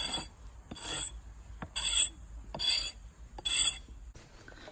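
Axe blade scraping and shaving the wooden end of an axe handle in repeated strokes, about one stroke every second, shaping the handle to fit into the axe head's eye.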